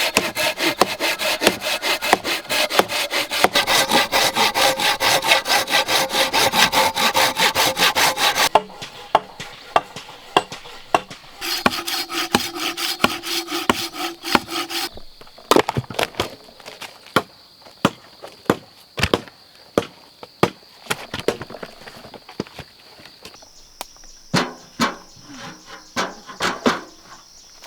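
Wood being worked with rapid, even rasping strokes for about eight seconds, then sparser sharp taps and knocks over a thin, steady high-pitched whine.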